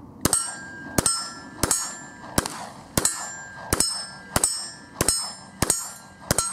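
A 9mm Glock pistol fired about ten times at a steady pace, roughly one shot every two-thirds of a second. Each shot is followed by the clang and ring of a steel target being hit.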